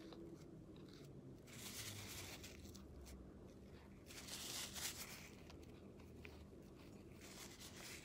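Near silence: low room tone, with two faint, brief rustling hisses about two and five seconds in.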